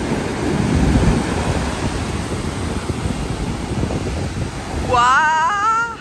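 Large Atlantic waves breaking and foaming whitewater washing up a sandy beach: a continuous rush of surf, loudest about a second in.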